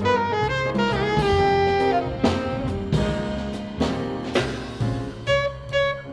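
Live jazz quartet of alto saxophone, piano, double bass and drum kit. The alto saxophone plays a moving melodic line over the rhythm section, with two loud drum accents about two and four seconds in, then short, clipped repeated notes near the end.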